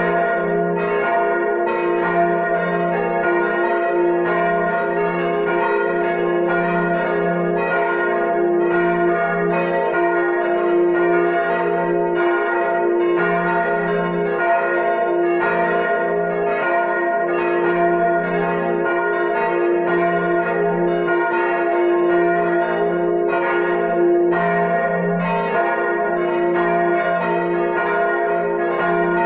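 Full peal of four swinging church bells, tuned f', as', b' and des'', ringing together in a dense, unbroken run of overlapping strikes.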